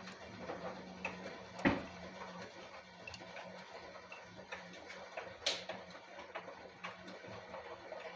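LG WD-1054FB washing machine running, with a steady motor hum under scattered light clicks and ticks. A louder knock comes about one and a half seconds in and a sharp click about five and a half seconds in.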